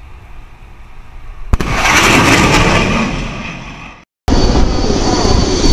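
A fighter jet's sonic boom during a low supersonic pass: a single sharp crack about a second and a half in, then the jet's loud rushing roar fading over the next two seconds. After a cut, a loud steady rushing noise.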